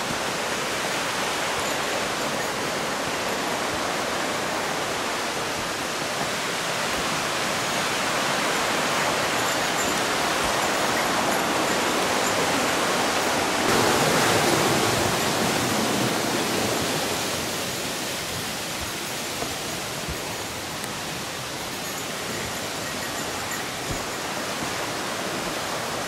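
Steady rush of the Russian River's fast water, growing louder toward the middle and then easing off.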